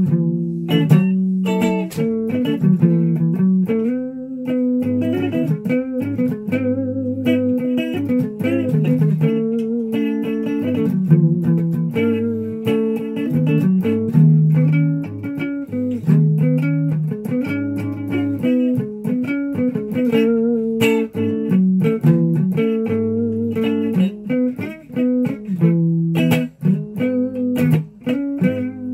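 Electric guitar (a solid-body SG-style double-cutaway) played unaccompanied: single picked notes and chords in a slow melodic line, each note held about half a second to a second and a half.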